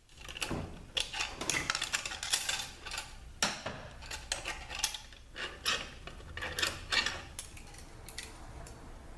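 Steel and friction clutch plates of the low-reverse clutch pack being pulled out of an automatic transaxle case, with repeated light metallic clinking and clattering as the plates knock together.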